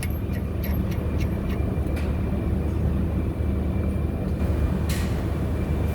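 Steady low rumble of an engine running nearby, with a few faint clicks of work on metal parts.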